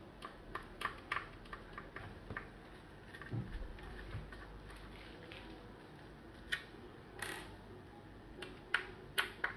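Faint, irregular small clicks and ticks of a precision screwdriver undoing the screws that hold a Huawei B622 router's circuit board, with the plastic housing being handled. A few sharper clicks come near the end.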